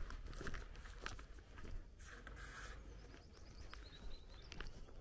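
Faint footsteps of someone walking on a paved country lane, with small birds chirping in the background and a quick run of high chirps about four seconds in.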